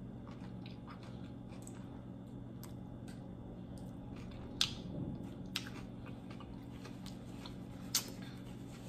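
A person chewing a mouthful of loaded nachos, with small wet mouth clicks and smacks and three sharper clicks in the second half, over a steady low hum.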